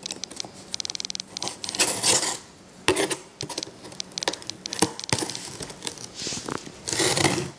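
Cardboard shipping box being opened by hand: a thin metal point scraping and slitting the packing tape, with rustling, clicks, a quick rattle about a second in and a sharp knock of the box a few seconds in.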